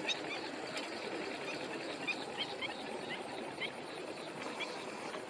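Short, scattered bird chirps, several in the first few seconds, stopping about four and a half seconds in, over the steady rumble of a tractor engine at work plowing.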